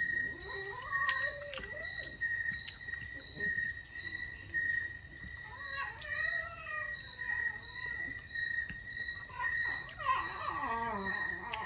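Crickets chirping in a steady pulsing trill, with dogs whining in rising and falling howling calls a few times over it.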